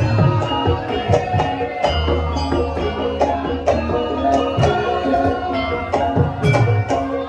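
Javanese gamelan music accompanying a Lengger dance: metallophones ring steady pitched notes over repeated deep kendang drum strokes that drop in pitch.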